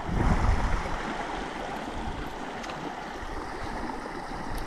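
Stream water running steadily, with a louder low rush of noise in the first second.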